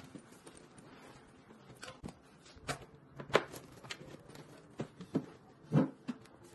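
Handling noises of someone settling at a desk: a few steps, then a backpack set down on a chair and a plastic folder moved on the desktop. They come as scattered light knocks and rustles, the loudest about three and a half and six seconds in.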